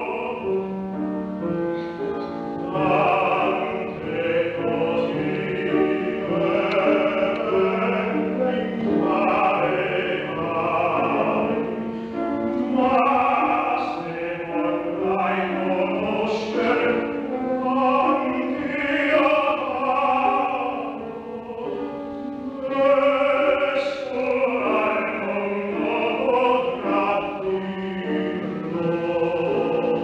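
Operatic baritone singing an Italian art song, sustained phrases with a wavering vibrato, over sustained accompaniment notes.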